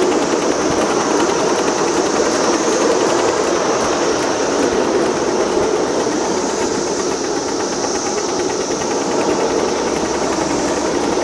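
Ridable miniature railway train running along its track: a steady rumble of wheels on rail, with a steady high hiss above it.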